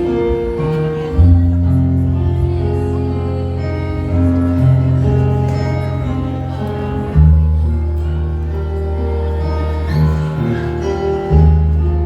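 Music: sustained chords over long, held bass notes that shift every one to three seconds, swelling louder at each bass change.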